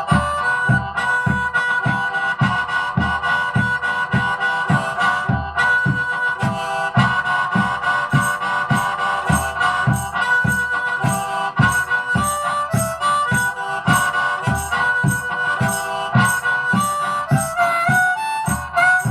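Harmonica playing a melody over a backing track with a steady drum beat.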